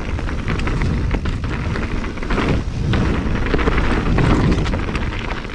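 Wind buffeting the microphone with a heavy rumble as a mountain bike rides down a dirt trail, its tyres and frame rattling and clicking over the rough ground.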